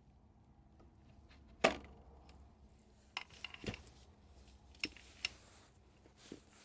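Handling sounds from an opened computer power supply: a sharp knock about a second and a half in, then a scattering of lighter clicks and taps as the unit and its cover are moved around.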